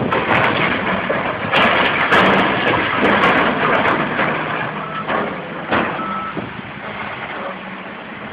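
Heavy machinery running amid loud, noisy clatter, with a low steady hum and two short high beeps about five and six seconds in.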